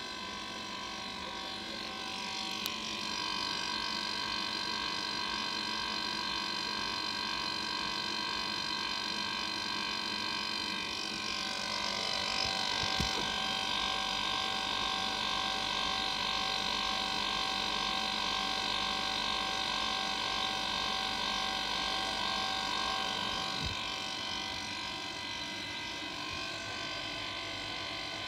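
Home-built helium compressor for a Gifford-McMahon cryocooler running steadily, built around a hermetic refrigeration compressor. It gives a continuous mechanical hum with several steady high whining tones, louder in the middle stretch.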